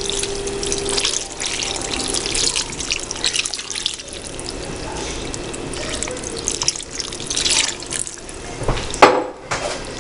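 Milk pouring in a stream from a glass jar into a pot of pasta, running steadily throughout. A sharp knock about nine seconds in is the loudest sound.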